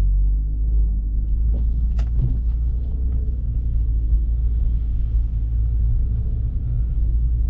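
BMW F30 335i's N55 turbocharged straight-six running with a deep, steady rumble as the car tries to pull away on snow and slush, its tyres unable to find traction. A single sharp click about two seconds in.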